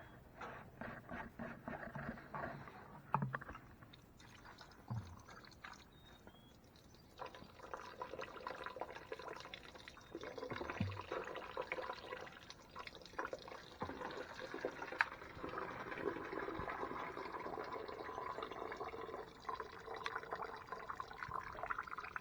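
Diesel and brake cleaner splashing and sloshing inside a Ford T19 transmission case as it is flushed out. Scattered clicks and knocks come in the first few seconds, and a steadier run of liquid noise follows from about seven seconds in.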